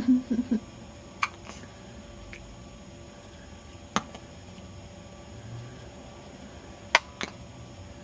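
A baby hiccuping: three short, sharp hiccups about three seconds apart, with a brief low vocal sound right at the start.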